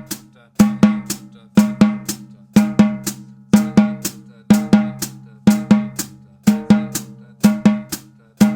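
Snare drum played in double strokes: two even strokes a quarter second apart, then a rest of the same length, one pair each second at a slow steady tempo. This is the warm-up for the double stroke roll, doubling the first two sixteenths of each beat. Each stroke rings with the drum's tone.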